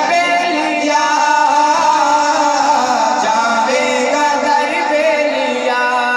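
Men singing a devotional song in praise of Ali into microphones over a PA system, the voice holding long drawn-out notes that bend between pitches.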